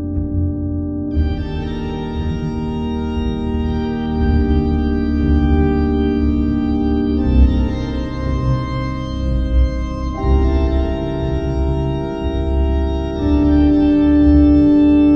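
Background music of held, organ-like chords that change every few seconds.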